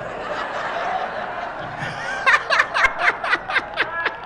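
Comedy club audience laughing; about two seconds in, one person's loud, rapid laugh rises over the crowd in quick repeated beats, about four a second, each falling in pitch.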